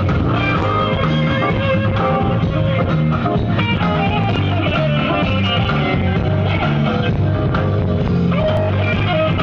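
Live blues band playing loud, with electric guitar and keyboards over a steady bass line.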